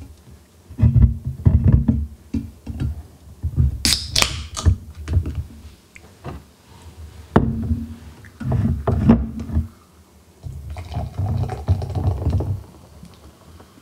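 An aluminium can of Coca-Cola Cherry Vanilla is handled on a wooden table with repeated low thumps. About four seconds in its pull-tab is opened with a sharp crack and a hiss of escaping carbonation. Near the end the cola is poured into a glass, fizzing as it foams.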